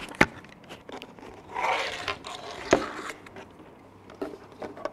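Handling noises: a sharp knock just after the start, a brief scrape about a second and a half in, a second knock a little later, and a few faint taps near the end.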